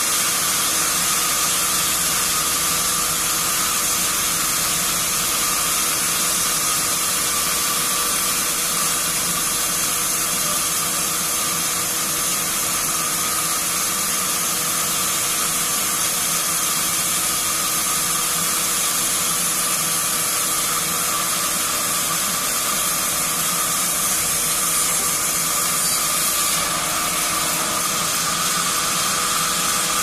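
Horizontal band sawmill cutting through a heavy log block. It makes a steady, even hiss with a few held tones underneath.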